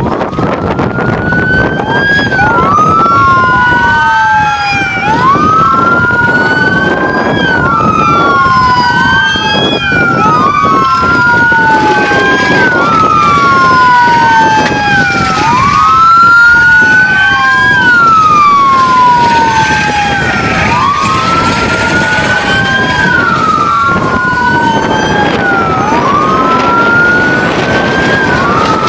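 Several police car sirens wailing out of step with one another, each sweeping up and down about every two and a half seconds, over the noise of passing vehicles' engines and tyres.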